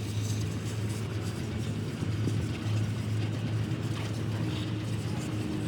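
A machine running steadily with a low, even hum and a few faint clicks.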